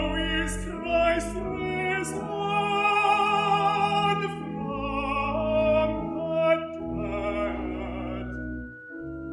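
Lyric tenor singing with vibrato over sustained organ accompaniment. The voice stops near the end, leaving the organ holding a chord alone.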